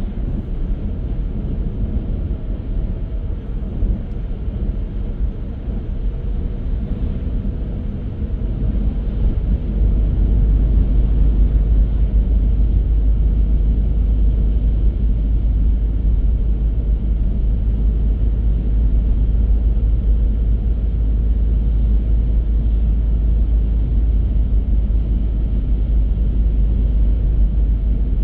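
A car driving along: steady road and tyre rumble with engine noise, the deep rumble growing louder about ten seconds in.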